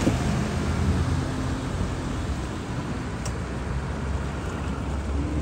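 Chaparral SSi 26's MerCruiser 350 MPI V8 sterndrive running at speed as the boat passes, its engine hum fading within the first couple of seconds as it pulls away. Steady rush of wind and water follows.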